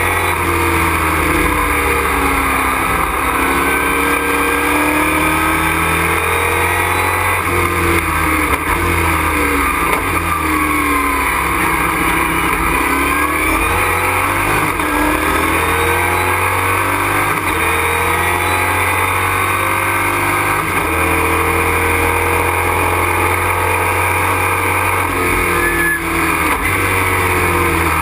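Race truck's engine heard from inside the cockpit at racing speed, its pitch climbing and falling again and again as it accelerates, shifts and slows for corners.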